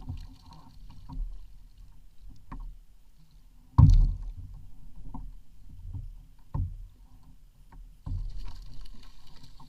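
Kayak on the sea: low water sloshing against the hull with irregular knocks about every second or two, the loudest a sharp thump about four seconds in.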